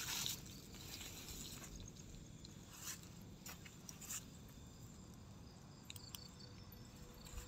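Faint night ambience outdoors: insects chirping softly, with a few short soft clicks scattered through.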